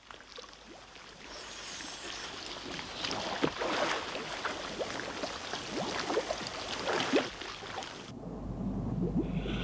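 Scuba diver's exhaled air bubbling underwater: a hissing, gurgling wash of many short rising bubble blips and clicks, growing louder. About eight seconds in it cuts off abruptly and a low rumble with steady musical tones takes over.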